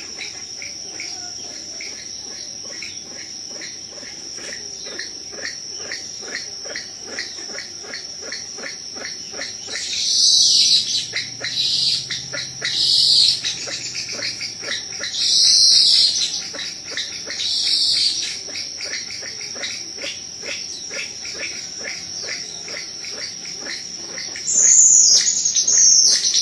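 Steady high-pitched insect chorus with a fast pulsing trill. Four louder bird calls come a couple of seconds apart partway through, and a louder falling call comes near the end.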